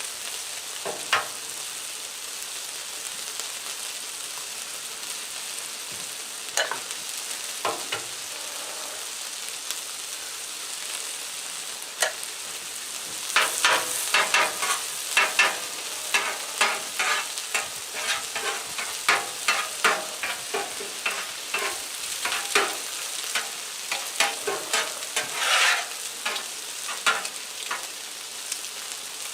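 Butter and eggs sizzling on a Blackstone flat-top griddle. From about halfway through, a metal spatula scrapes and taps on the steel in quick, irregular strokes as the eggs are scrambled.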